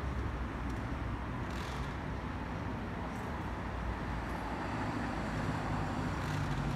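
Steady low jet rumble of an Airbus A320-216's CFM56 turbofan engines, distant and receding after the flyover, with a broad hiss over it.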